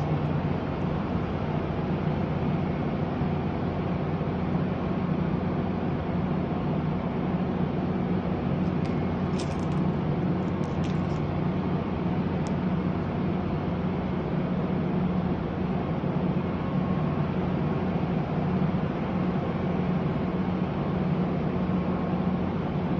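Large CNC roll grinder running: a steady machine hum, with a few faint high clicks around ten seconds in.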